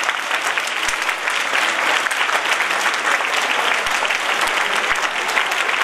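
An audience applauding, many hands clapping steadily throughout.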